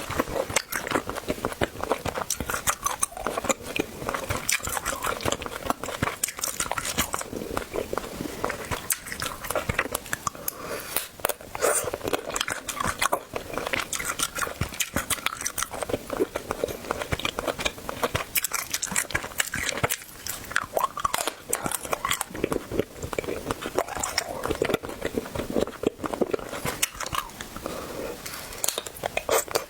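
Close-miked eating: a person biting and chewing food with crunching and wet mouth sounds, a fast run of sharp clicks and crackles.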